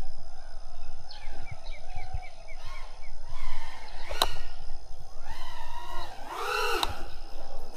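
FPV quadcopter's brushless motors and propellers whining, the pitch rising and falling with each throttle punch, with one big swell near the end. A quick string of short high chirps sounds about a second in.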